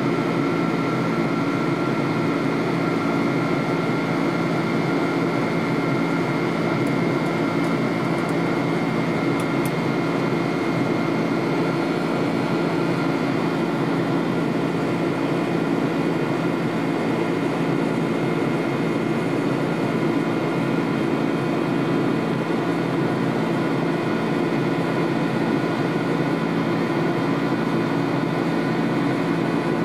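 Steady in-flight cabin drone of a McDonnell Douglas MD-11 airliner, heard inside the cabin beside the wing engine: jet engine and airflow noise with a faint steady high whine.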